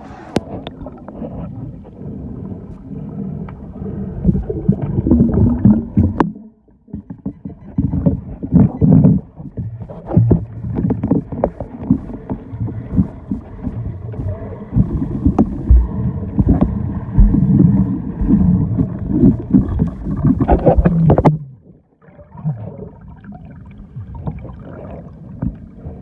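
Water sloshing and splashing in irregular surges, with scattered knocks and two brief lulls.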